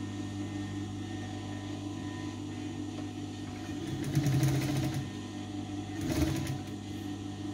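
Sewing machine stitching in two short runs, the first about a second long and the second, shorter, about a second later.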